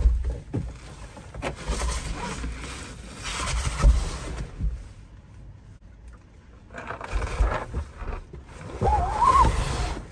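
Wind buffeting the microphone outdoors by the water, in two gusts with a low rumble and a rushing noise. A short wavering call sounds near the end.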